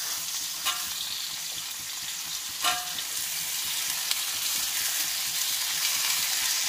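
Beef, cauliflower and carrot sizzling in a hot steel wok, a steady frying hiss. A metal spatula scrapes against the wok twice in the first few seconds, the second time with a brief metallic ring.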